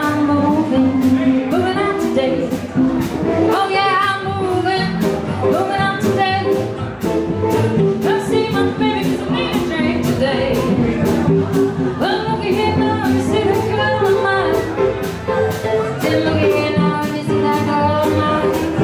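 Live band playing with electric and acoustic guitars over a steady drum beat, with a wavering sung lead melody.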